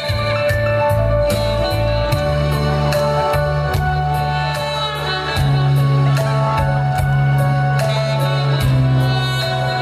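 Saxophone playing a slow melody with long held notes over a backing track with a steady bass line and a regular drum beat.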